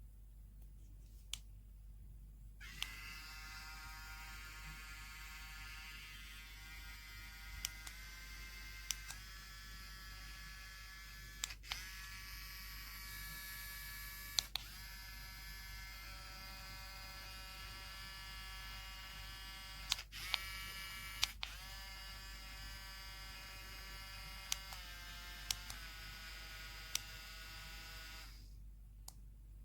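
Small high-speed motor of an electric nail drill running with a steady whine. It starts about three seconds in and stops near the end, shifting slightly in pitch a couple of times. Scattered sharp clicks sound over it.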